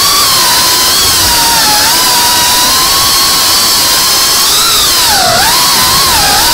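FPV racing quadcopter's electric motors and propellers whining loudly over a hiss, the pitch wavering with the throttle; about five seconds in it drops sharply as the throttle is cut, then climbs back.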